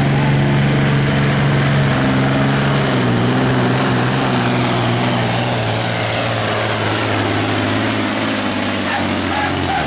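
Volvo FH16 pulling truck's diesel engine running flat out as it hauls the sled down the track, its pitch sinking slowly over the second half as the engine bogs under the growing load.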